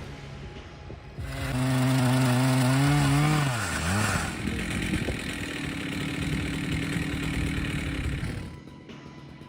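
Chainsaw engine running hard from about a second in, its note wavering, then dropping sharply in pitch about three and a half seconds in as it bogs under load before picking back up. It then runs on more quietly and fades near the end.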